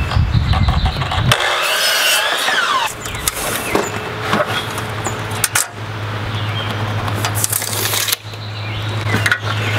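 Rattling and clicking of a steel tape measure being pulled along and let back onto a plank of rough-sawn lumber, with a falling whirr early on. Under it, a steady low hum sets in about three seconds in.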